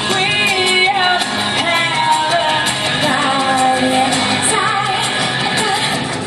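Pop music with a sung vocal and a steady beat.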